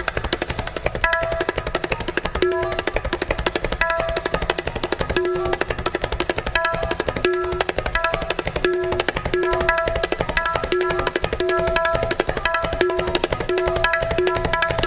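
Tabla played in fast, dense strokes in a galloping rhythm meant to imitate a running horse. A short repeating figure of held notes at two pitches recurs over it.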